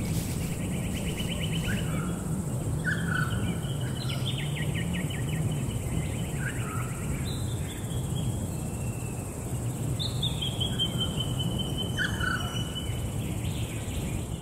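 Nature ambience of songbirds chirping: short chirps, rapid trills, and one long, slightly falling whistle about ten seconds in, over a steady low background rumble.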